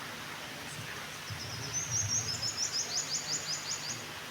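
A small bird singing a quick run of high, repeated chirping notes, starting about a second in and stopping shortly before the end, over a steady background hiss.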